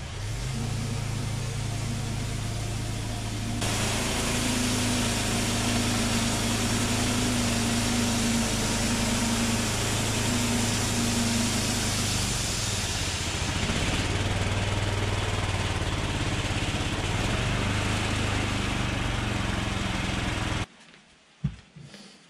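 A homemade bandsaw mill's engine runs steadily while its blade saws through a large elm log; the cutting noise grows louder a few seconds in. About a second and a half before the end, the machine stops abruptly, followed by a couple of short knocks.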